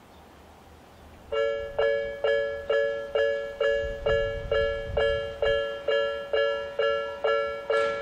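Japanese level-crossing electronic warning bell of the Tobu "Nikko type", starting up about a second in as the crossing activates. It then repeats a pitched ding a little over twice a second, each one fading before the next.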